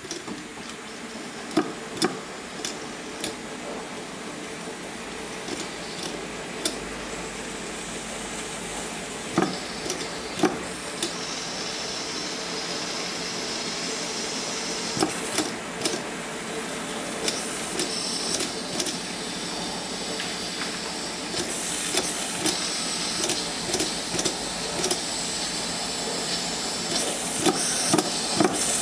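Steam hissing into a small homemade single-acting steam engine, growing louder, with irregular clicks and knocks as its flywheel is turned by hand. The engine does not keep running on steam, which the builder puts down to a too-light aluminium flywheel and weak steam pressure from a small kettle.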